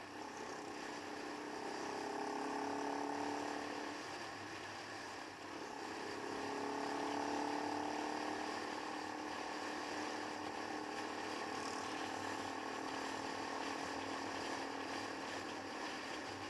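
Keeway Superlight motorcycle engine running on the move, mixed with wind noise. Its note climbs slightly twice, about a second in and again about six seconds in.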